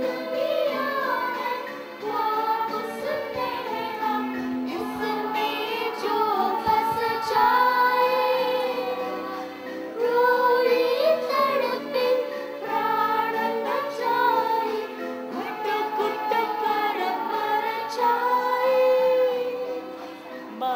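Girls' choir singing a song together into microphones, the melody moving in phrases of a few seconds, over held notes from an electronic keyboard.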